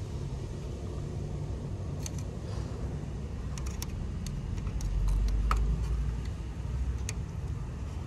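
Small clicks and taps of multimeter test probes being placed on an air conditioner's outdoor circuit board, over a steady low rumble that swells about five seconds in.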